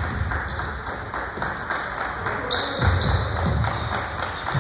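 Basketball game in a gym: a ball bouncing on the floor in repeated thumps, with sneakers squeaking and voices in the background.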